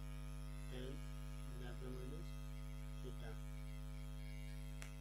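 Steady electrical mains hum with a buzzy row of overtones, with a few short murmured voice sounds in the first three seconds and a faint click near the end.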